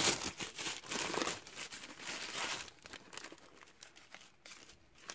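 Plastic packaging crinkling and rustling as it is handled, with many small crackles and clicks; busiest in the first couple of seconds, then trailing off to faint handling.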